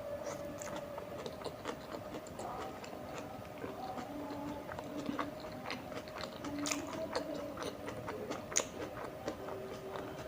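Close-miked chewing of tandoori momos: irregular soft, wet mouth clicks as the food is bitten and chewed.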